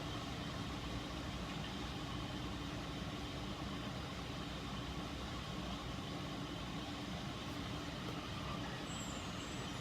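Steady low hum of background machine noise, like an air conditioner or fan, with a faint steady tone and no distinct events.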